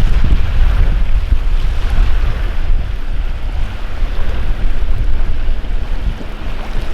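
Helicopter rotor noise: a loud, low rumble of the blades that grows slowly fainter.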